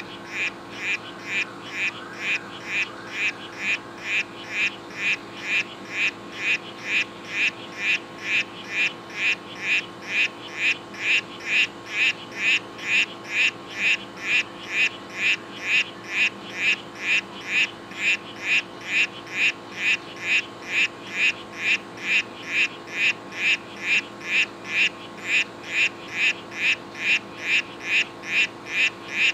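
A male Oophaga histrionica 'Bahia Solano' poison dart frog giving its courtship call: short chirps repeated evenly, about two a second.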